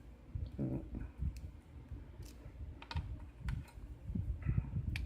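Scattered small clicks and light handling rustle from lock picks and a tension wrench working in a hand-held pin-tumbler lock.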